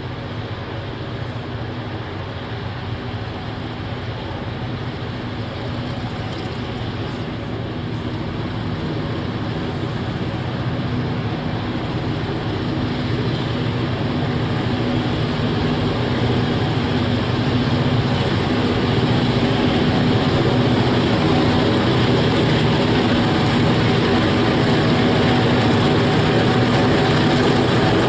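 Diesel locomotives of Victorian P, T and S classes hauling a loaded grain train, their engines running with a steady drone that grows louder as the train approaches.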